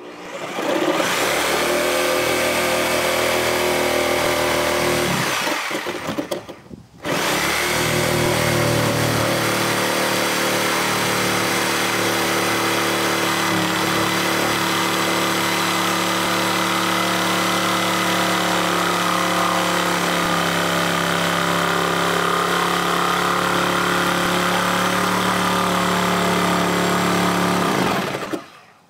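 Reciprocating saw cutting through old barn wall boards, its motor running steadily at full speed. It runs for about five seconds, stops briefly, then cuts again for about twenty seconds before stopping.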